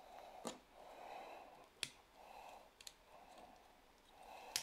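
Faint, sharp clicks of the hard plastic parts of a Shinkalion Z Dark Shinkalion transforming toy robot being handled and snapped into place, a handful spaced about a second apart, with soft breathing between them.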